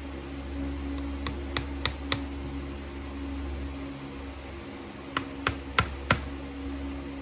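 Farrier's driving hammer tapping horseshoe nails into a horse's hoof to fix a shoe over a leather wedge pad: two quick runs of four light taps, the second run louder.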